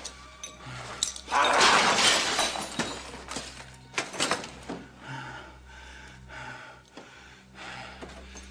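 A sudden loud crash of something breaking about a second and a half in, followed by smaller knocks and clinks scattering over the next few seconds.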